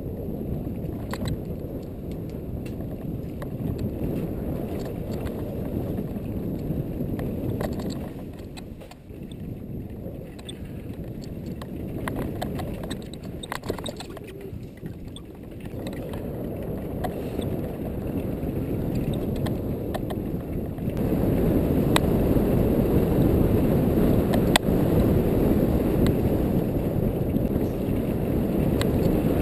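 Mountain bike descending a rough dirt trail at speed: wind buffeting on the camera microphone and the rumble of tyres over the ground, with frequent sharp clicks and knocks from the bike rattling over bumps. The rumble grows louder about two-thirds of the way through.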